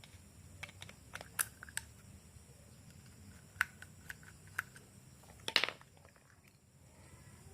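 Sparse light clicks and taps of small parts and tools being handled during work on a lawn mower carburetor, with a brief rattling cluster near the end. The engine is not running.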